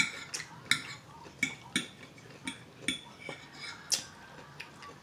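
Metal cutlery clinking against a plate while eating: about a dozen irregular, sharp ringing taps, the loudest at the very start and another just before the end.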